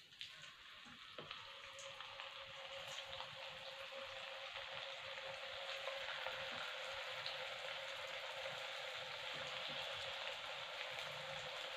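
Potato-and-cornflour dough sticks sizzling in hot oil in a deep pan, the frying growing louder as more sticks are dropped in one by one. A faint steady hum runs underneath.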